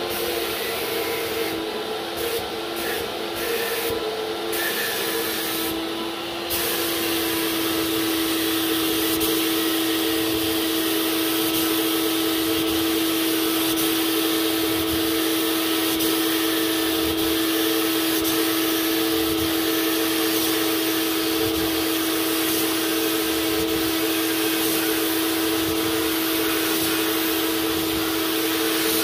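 Paint spray gun hissing over the steady hum of its air supply while a finish is sprayed onto a cabinet. For the first six seconds or so the hiss breaks off briefly several times, then runs without a break.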